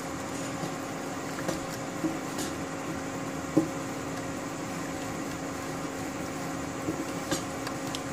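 A steady motor hum, with a wooden spoon stirring milky white sauce in a nonstick pan and a few light knocks of the spoon against the pan.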